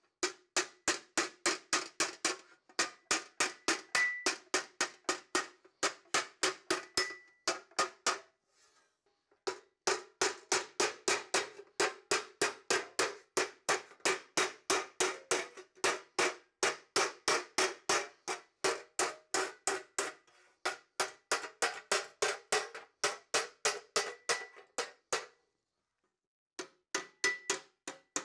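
Hand hammer striking sheet metal against a brake rotor used as a forming stake: rapid, steady ringing blows about four a second, shaping and shrinking the edge of an engine cooling tin. The hammering stops briefly twice, once about eight seconds in and again near the end.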